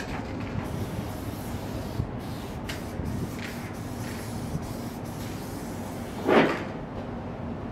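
Aerosol spray-paint can hissing in spurts as paint goes onto a wall, over a steady low background rumble. A brief, louder rush of noise comes about six seconds in.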